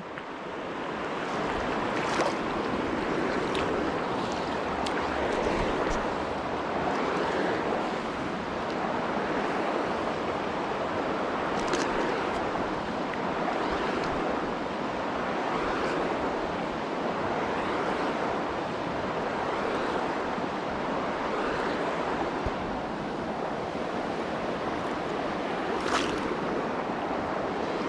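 Steady rush of a shallow river running over rocks and riffles, with a few brief clicks.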